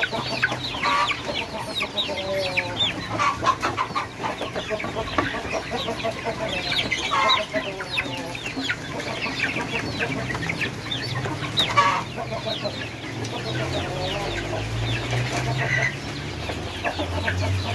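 A flock of young kampung chickens clucking and calling, many short overlapping calls with no let-up.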